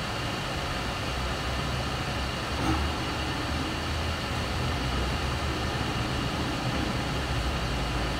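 Steady background noise: a low hum under an even hiss, with a brief louder moment a little under three seconds in.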